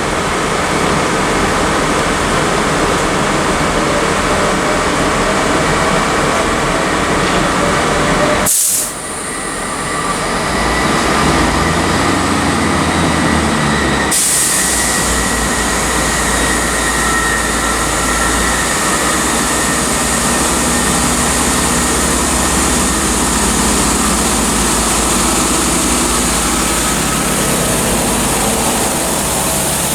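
A Class 165 Turbo diesel multiple unit's underfloor diesel engines running steadily beside the camera. The sound breaks off briefly about eight and a half seconds in and comes back changed a few seconds later.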